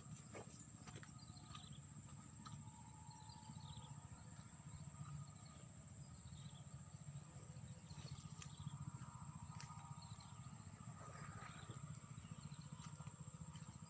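Faint outdoor ambience: short falling chirps every second or two over a steady low rumble and a constant thin high-pitched whine, with a few scattered clicks.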